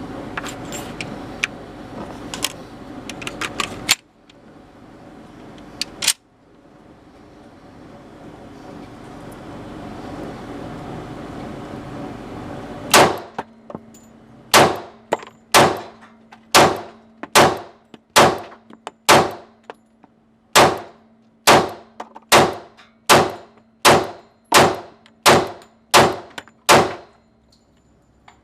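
A steady string of gunshots, a little more than one per second for about fourteen seconds, each with a short ringing tail. Before them, a low rumbling noise with a few scattered sharp clicks.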